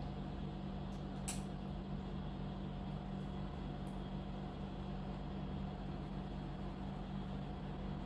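A steady low mechanical hum with a faint hiss, and one short click a little over a second in.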